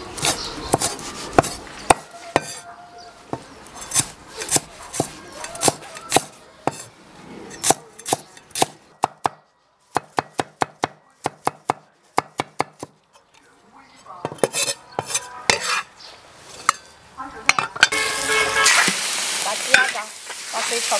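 Cleaver chopping pickled chillies and pickled vegetables on a chopping block, in irregular strikes with a quick run of chops midway. Near the end, chicken and duck giblets sizzle in a hot wok while a metal spatula stirs them to cook off their water.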